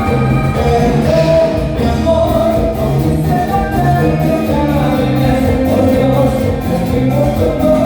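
Live cumbia band playing with vocals, over a steady bass line and a regular percussion beat.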